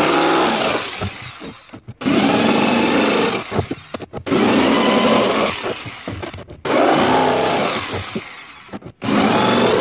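Electric jigsaw cutting slots in a plastic barrel. It runs in bursts of about two seconds, each loudest as it starts and tailing off, with short stops between, about five times.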